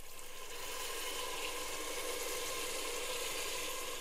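Water being poured into a pressure cooker of frying mutton keema, hissing and sizzling steadily on the hot mince and tomato.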